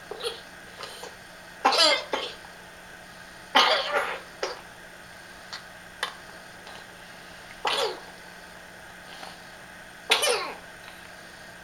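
A night-time coughing fit: four loud, harsh coughs about two seconds apart, with smaller coughs and catches of breath between them.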